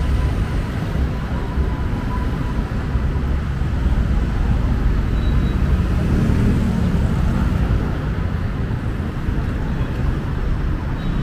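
Steady city road traffic: the rumble of passing cars and engines, with one vehicle swelling louder a little past the middle.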